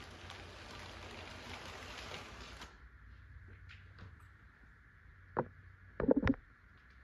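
Lego train rolling over plastic track, a steady rattling hiss that cuts off suddenly about two and a half seconds in as the train comes to a stop. Then a single sharp click, and near the end a short cluster of loud knocks.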